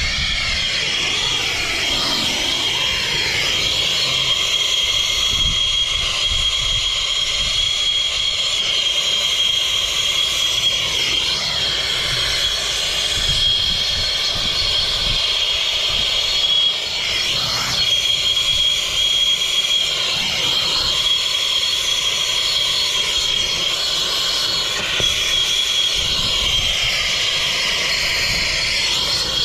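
A Turbo Torch air-fuel soldering torch burning steadily: a continuous hiss with a steady high whistle, as the flame heats a copper joint for soldering.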